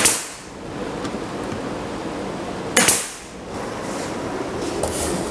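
Pneumatic stapler driving staples into a wooden drawer box: two sharp shots about three seconds apart, each a quick double crack followed by a short hiss of air.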